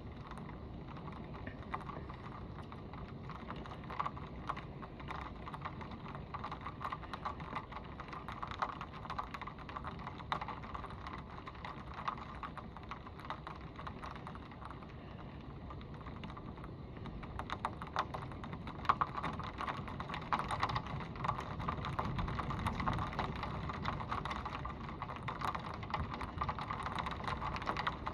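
Heavy thunderstorm rain falling on the paved driveway and street, with many close drops tapping. The rain picks up about two-thirds of the way in and stays heavier.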